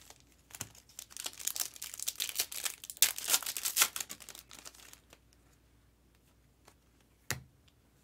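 Foil trading-card pack wrapper being torn open and crinkled. A dense run of crackling starts about a second in and dies away around five seconds, loudest near the middle. One sharp click follows near the end.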